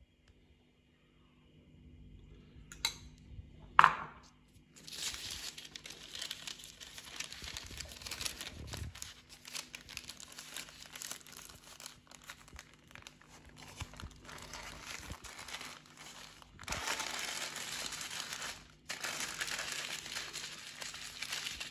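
Sheet of white paper crinkling and rustling as a flatbread wrap is rolled up in it, steady from about five seconds in and louder near the end. Two sharp knocks come just before the crinkling starts, the second one the loudest sound.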